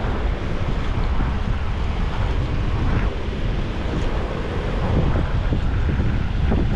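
Wind buffeting the microphone: a steady, rumbling rush strongest at the low end.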